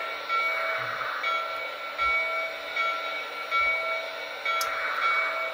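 Lionel Legacy O gauge steam locomotive's onboard sound system ringing its bell, steady repeated strokes, with intermittent steam hiss behind it.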